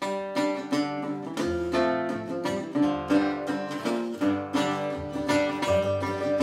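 Acoustic folk-style string music: a strummed acoustic guitar with a second plucked string instrument picking over it and low bass notes underneath. It starts suddenly and keeps an even, rhythmic pulse.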